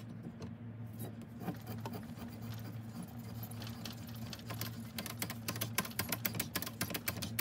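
A 14 mm double-start threading die being turned by hand onto an ebonite blank, cutting the thread with a rapid, irregular run of small clicks and scratches that grows dense from about halfway through. A steady low hum sits underneath.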